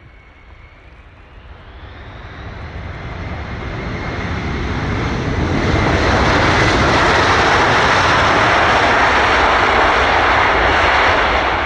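Jet engines of a large aircraft passing, growing steadily louder over about six seconds with a whine rising in pitch near the start, then loud and steady until the sound cuts off suddenly near the end.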